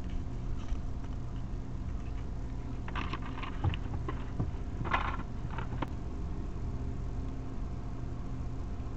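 Steady low mechanical drone of a working harbour, with a few short clicks and rattles about three and five seconds in.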